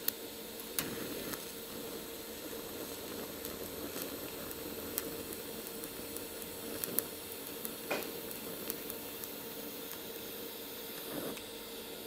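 Low-current (35 A) TIG arc on thin sheet steel hissing steadily with a faint even hum, laid in short stitches. A few sharp ticks cut through the hiss.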